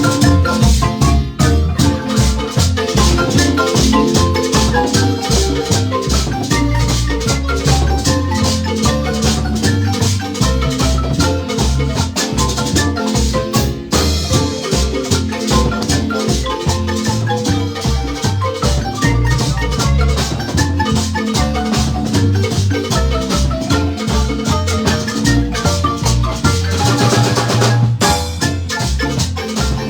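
Marimba band playing a lively piece, rapid mallet notes over a steady bass line and drums with shaker-like percussion.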